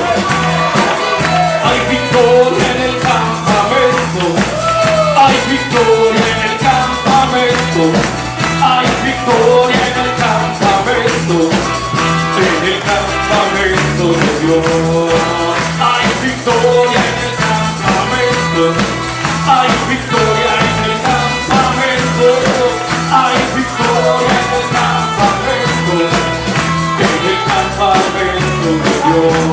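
Lively church worship music from a band, with a steady driving beat and melody lines.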